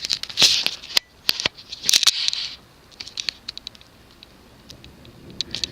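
Cardboard box being handled: two short scraping rustles in the first couple of seconds, with sharp clicks and taps, then lighter scattered ticks.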